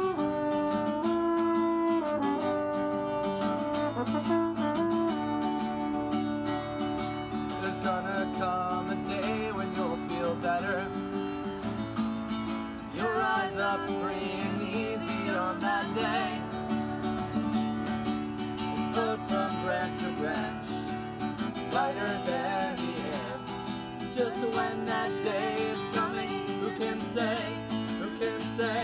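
Strummed acoustic guitar with a French horn playing long held notes over the first few seconds; after that the guitar goes on under a wavering melodic line that comes and goes.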